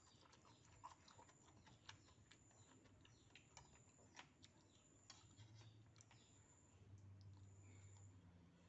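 Faint eating sounds: a metal spoon and fork clicking and scraping against a plastic bowl of noodles, with chewing, in irregular small clicks.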